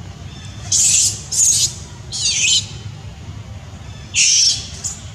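Young macaque screaming: three short, shrill screams close together, then another near the end followed by a brief squeak.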